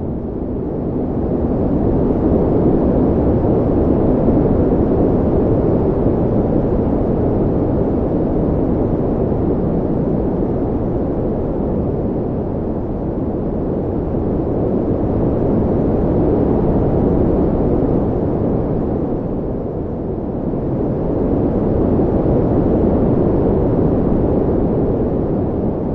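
Desert wind blowing: a low, steady rush that swells into gusts and eases off again every several seconds.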